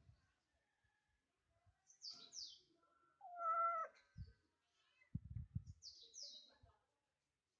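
A domestic cat gives one short, steady meow about halfway through. High chirps, twice in quick pairs, and a few soft low thuds come before and after it.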